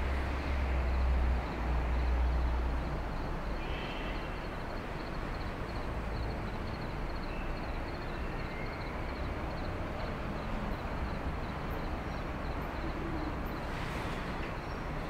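Outdoor night street ambience: a steady wash of noise with a heavy low rumble in the first two or three seconds. Faint high ticking runs at about three ticks a second through the first half.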